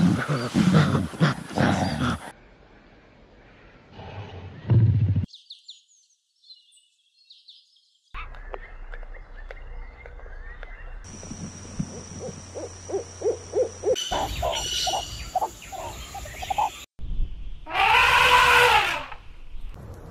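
A string of different animal calls spliced one after another. It opens with loud, low grunting calls, followed by a few faint high chirps and then a run of quick, evenly spaced clicking calls, and near the end comes one long call that rises and then falls in pitch.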